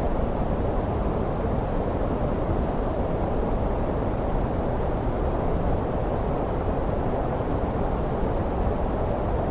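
A steady, unchanging low rumble of noise with no separate events in it.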